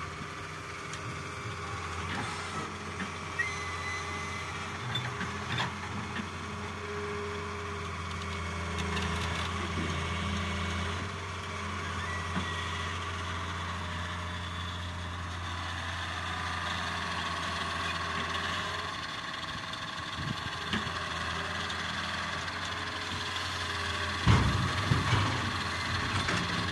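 Fiat-Hitachi wheeled excavator's diesel engine running steadily under working load, with hydraulic whine as the boom digs and swings. Near the end a bucketful of soil drops into the steel dump-truck bed with a burst of loud thuds.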